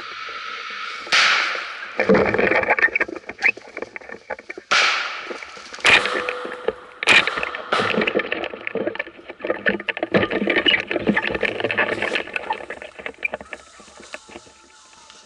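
Footsteps crunching through dry fallen leaves and brush, with twigs and branches rustling and scraping past: irregular crackles and several louder swishes, quieter near the end.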